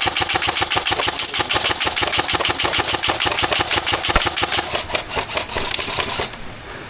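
Airsoft electric gun (AEG) firing a long full-auto burst: a rapid, steady stream of mechanical shots that stops about six seconds in. The stop is consistent with the magazine running dry.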